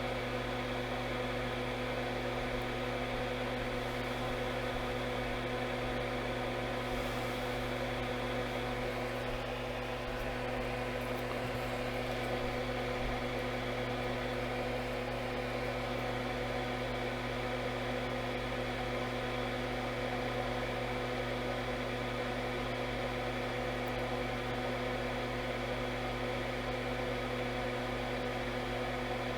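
Steady machine hum of a motor or fan, made up of several held tones at an even level with no change.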